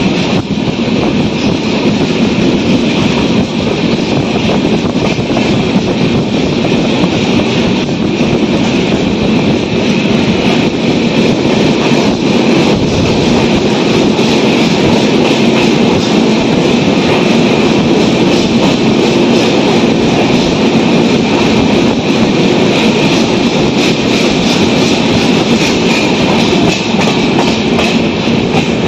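Indian express passenger train running at speed through a station without stopping, heard from aboard: a loud, steady rumble and rush of the wheels on the rails with a running clatter over the track.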